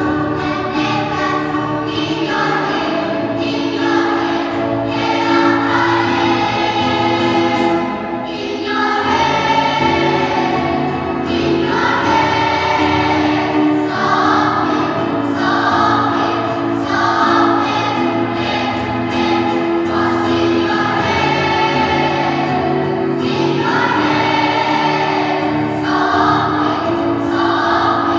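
A school choir singing in several parts with sustained, held notes, pausing briefly between phrases about eight seconds in.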